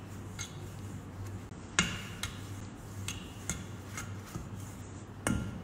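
Wire balloon whisk beating thick cake batter in a stainless steel mixing bowl: irregular clicks of the wires against the bowl, with two louder ringing clinks, about two seconds in and near the end.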